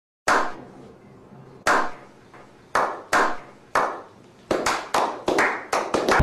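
A small group of men clapping in a slow clap. Single claps come more than a second apart at first, then quicken to about four a second near the end.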